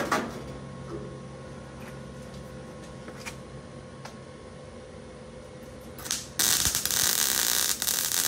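Vulcan OmniPro 220 MIG welder's arc crackling on thin car-body sheet steel while a hole is filled against a backing plate: a brief spurt about six seconds in, then a steady loud weld crackle for the last two seconds. Before that only a low steady hum, with a click at the start.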